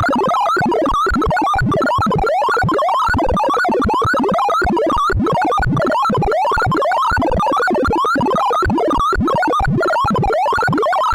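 Sound of Sorting tones for a cycle sort: a fast, unbroken stream of synthesized electronic beeps whose pitch follows the values of the array elements being accessed. They form repeated rising sweeps, about two a second.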